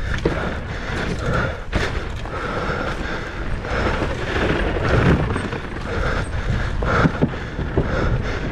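A mountain bike descending a bike-park dirt trail: steady tyre and wind rumble on the microphone, with the frame and drivetrain rattling and sharp knocks over bumps several times.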